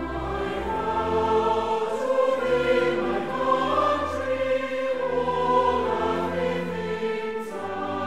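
Orchestral music with a choir singing long held notes.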